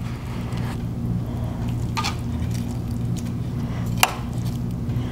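Orzo and chicken cooking in a cast iron skillet on a tabletop burner: a steady low hum and faint hiss, with two short metal clinks, about two seconds in and a sharper, ringing one about four seconds in.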